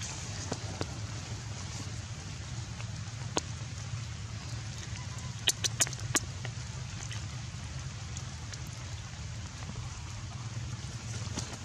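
Outdoor ambience: a steady low rumble with a few sharp clicks, one about three seconds in and four in quick succession about halfway through.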